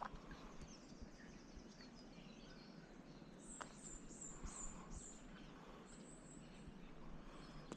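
Faint bird calls: high-pitched chirps in short runs of quick repeated notes, over quiet outdoor background.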